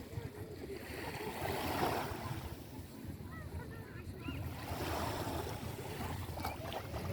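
Sea waves washing onto a beach, two swells of surf about three seconds apart, over a steady low wind rumble on the microphone.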